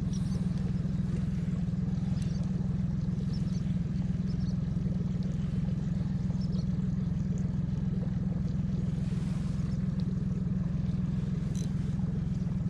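A boat's motor running steadily with a constant low hum.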